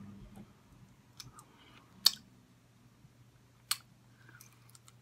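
Eating sounds close to the microphone: a few sharp, wet mouth clicks while chewing fried chicken wings, the loudest about two seconds in and just before four seconds, over a faint steady low hum.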